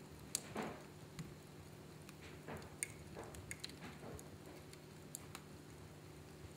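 Fireplace fire crackling, with scattered sharp pops and a few short hisses, over a steady low hum.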